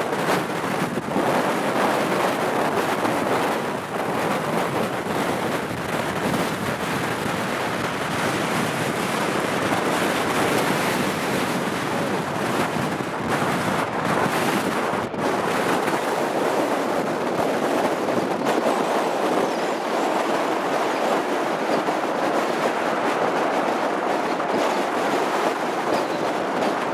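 Strong wind buffeting the microphone as a steady rushing noise, mixed with the jet engine noise of a four-engine Airbus A380 landing and rolling out.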